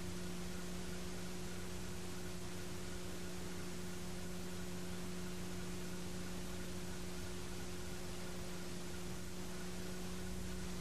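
Steady electrical hum with a constant hiss and no game sounds: the noise floor of a VHS tape played back for transfer.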